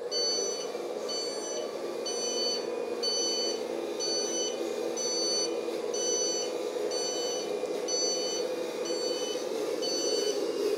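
Reversing warning beeper from the sound module of a radio-controlled IVECO 8x8 truck, beeping evenly about one and a half times a second as the truck drives backward, over a steady hum from the truck.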